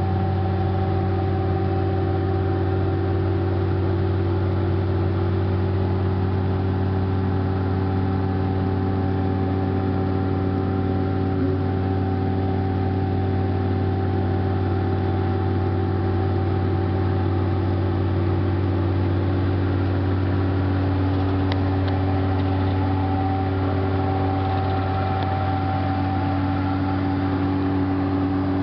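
An engine running steadily at constant speed: an even, low drone that holds the same pitch throughout.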